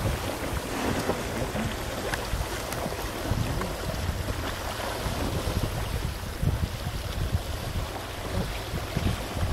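Wind buffeting the microphone in uneven gusts, over water sloshing and lapping, heard from aboard a sailboat.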